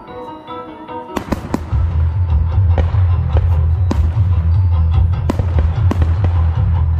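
Aerial firework shells bursting with sharp bangs and pops, several in a row, over music. About two seconds in a loud, deep low rumble comes in and stays.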